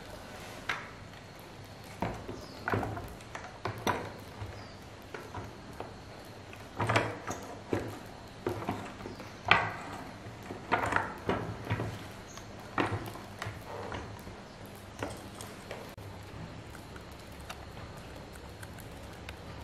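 Plastic chainsaw housing and parts knocking and clicking as they are handled and fitted together, an irregular scatter of short knocks that thins out in the last few seconds.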